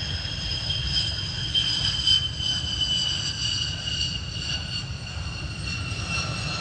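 F-15 Strike Eagle's twin turbofan jet engines on the runway: a steady low roar with a high engine whine that slowly falls in pitch as the jet moves past.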